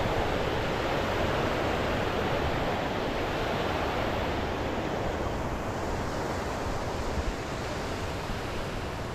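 Steady rush of the Shumak, a fast mountain river, fading a little in the last few seconds.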